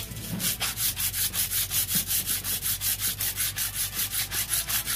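Aluminium motorcycle cam holder being rubbed back and forth on 120-grit sandpaper over a flat tile, in quick even gritty strokes about five a second. The holder's worn bearing face is being lapped down to close up excess camshaft clearance that lets the camshaft lift and make the engine noisy.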